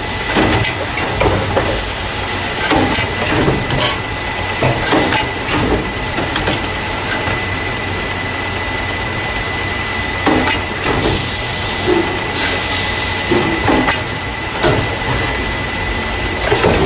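Carton case packer running, the machine that packs paper juice and milk cartons into plastic crates: a steady stream of irregular knocks and clatters over a constant high whine, with two short spells of hissing about two-thirds of the way through.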